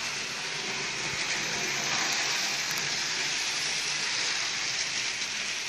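Model railway train running around its track, a steady, even hiss-like whirr with no break.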